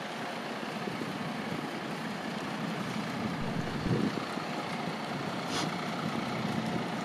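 Outdoor city ambience: a steady hum of distant traffic, with a soft low thump about four seconds in and a brief hiss a moment later.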